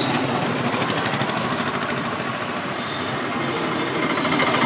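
A machine or small motor running with a fast, steady mechanical rattle.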